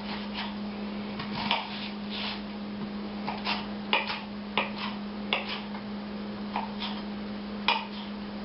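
Knife cutting onion on a cutting board: about a dozen irregular knocks of the blade against the board.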